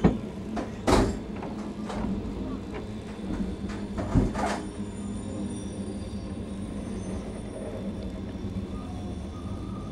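Passenger train rolling slowly out of the station, heard from inside a TVZ-built compartment coach: a steady low hum with several sharp clunks from the running gear in the first half, the loudest about a second in.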